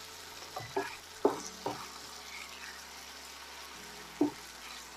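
Chicken pieces sizzling in oil in a frying pan, stirred with a wooden spatula that knocks and scrapes against the pan several times: a cluster of knocks in the first two seconds and one more, among the loudest, a little after four seconds.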